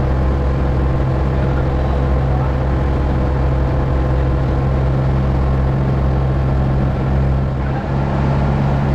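Outrigger fishing boat's engine running steadily while underway, a loud continuous drone heard on board.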